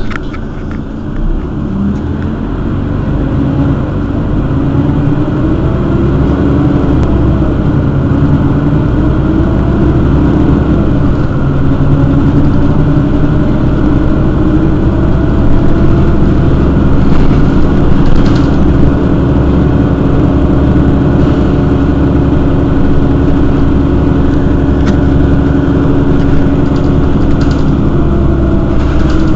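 Mercedes-Benz Citaro city bus engine running, growing louder over the first few seconds and then holding steady, its pitch drifting up and down a little.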